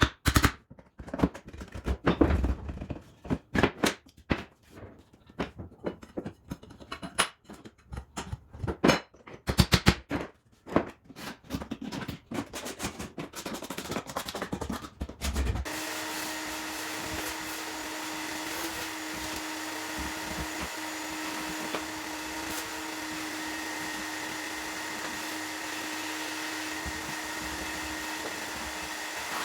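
Irregular sharp knocks, several a second, as of tools striking wood during parquet repair work. About halfway through, an electric power tool starts and runs steadily with a constant hum.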